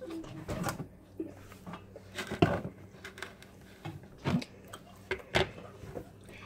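A metal fork clinking and tapping against a plate a handful of times, scattered and irregular.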